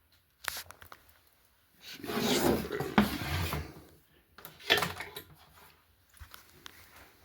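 A box fan being handled and shifted: bursts of rubbing and scraping with a few sharp knocks and clicks, the longest scrape about two seconds in.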